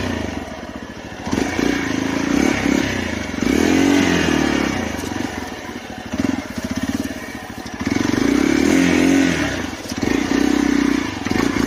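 Motorcycle engine revving up and down in repeated bursts of throttle as the bike is ridden slowly over a rough off-road trail.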